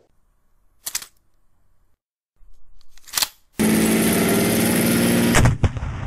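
Tank engine sound effect, starting up loud and running steadily for about two seconds before cutting off. It is preceded by two short, sharp sounds, one about a second in and one about three seconds in.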